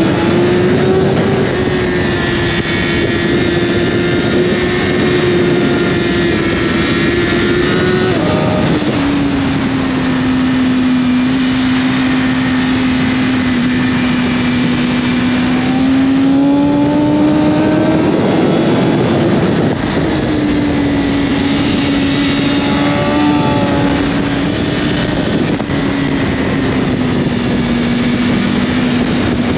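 BMW S1000RR's inline-four engine running at high, fairly steady revs under rushing wind. The engine pitch drops a few times and climbs again as the rider changes gear and accelerates.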